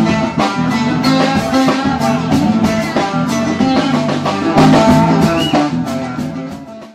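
Band music with guitar and drums, fading out near the end.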